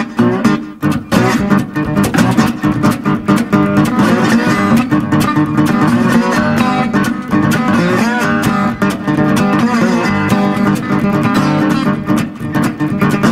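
Solo acoustic guitar instrumental passage: quick picked notes over steady ringing bass notes.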